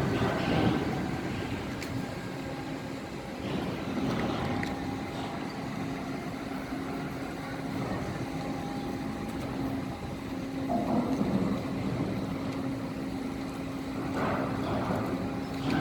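Steady running noise of a vehicle in motion: a constant engine hum over a low rumble, swelling louder now and then.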